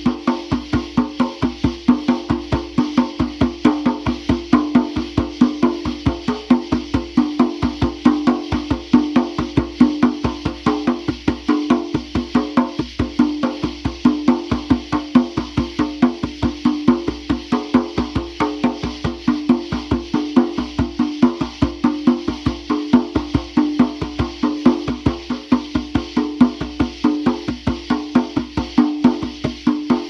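Hand drum struck in a steady, fast, even rhythm, several sharp strokes a second with a ringing mid-pitched tone.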